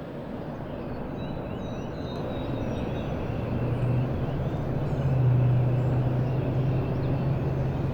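Outdoor background: a distant engine rumbles, its low hum growing louder from about three seconds in, while small birds chirp faintly.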